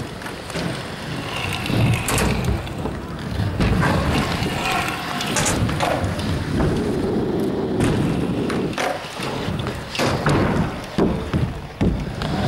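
Stunt scooter wheels rolling over the floor and ramps of an indoor skatepark, with several sharp clacks as the scooter hits the surface.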